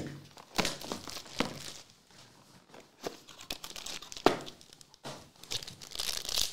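Cardboard trading-card box being handled and opened, with scattered taps and clicks and a sharp one about four seconds in, then a foil card pack crinkling as it is pulled out and torn open near the end.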